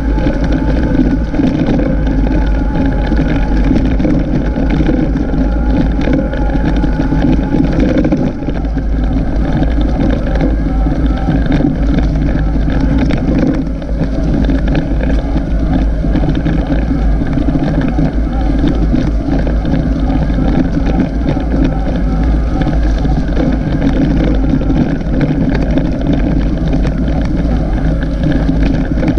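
Continuous low rumble and wind buffeting on the microphone of a camera travelling along an off-road track, with no break in it.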